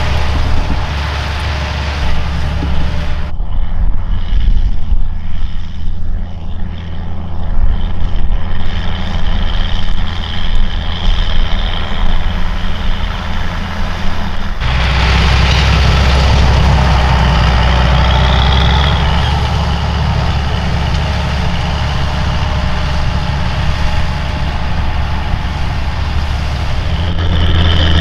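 Fendt 920 Vario TMS tractor's MAN six-cylinder diesel working hard under load, pulling a disc harrow through the soil. The steady, deep engine note changes abruptly twice, about three seconds in and about halfway through.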